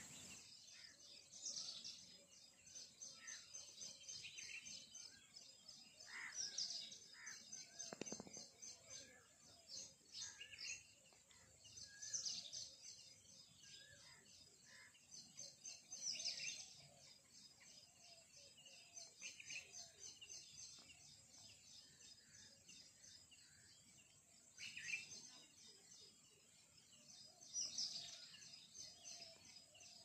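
Faint outdoor chorus of small birds chirping, with louder calls standing out every few seconds over a fast, steady high chatter. A soft thump about eight seconds in.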